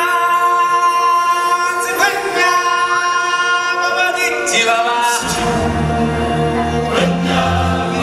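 Show music with a choir singing long held notes; deep bass notes come in about five seconds in.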